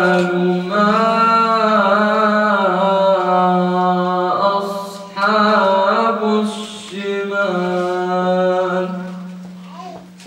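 A young man's voice reciting the Quran in the melodic, chanted style, with long held, ornamented notes. There is a short pause for breath about four and a half seconds in, and the phrase trails off near the end.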